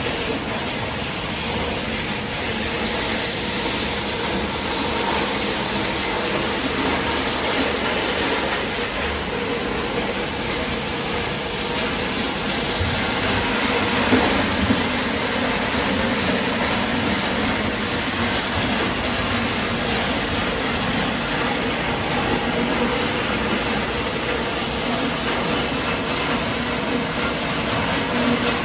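Appliance recycling line machinery running steadily: a dense mechanical din with a low hum, and a couple of brief knocks about halfway through.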